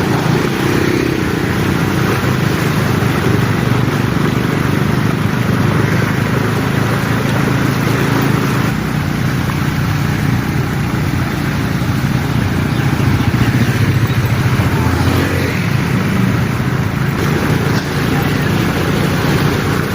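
A motor vehicle engine running steadily with an even, noisy rush over it.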